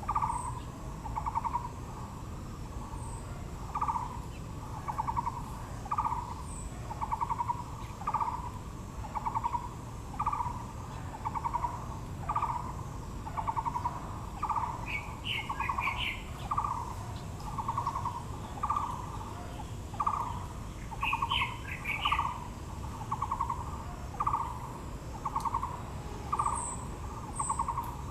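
A bird calling the same short trilled note over and over, about once a second, with brief higher chirping from other birds twice along the way.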